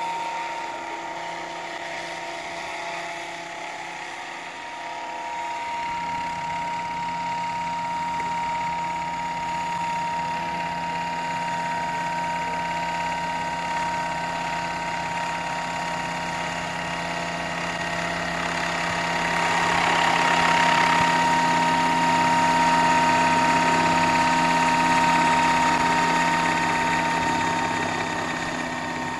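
Radio-controlled Bell UH-1 scale model helicopter running with a steady high whine. It grows louder about 18 seconds in as the model lifts off and climbs.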